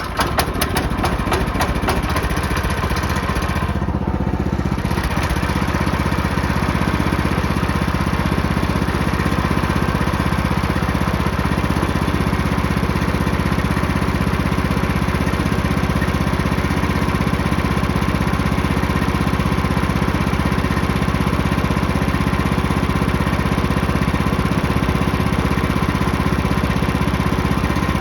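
Wood-Mizer LT15 sawmill's gasoline engine running at a steady speed just after starting, with the broken on/off switch held closed by a makeshift fix.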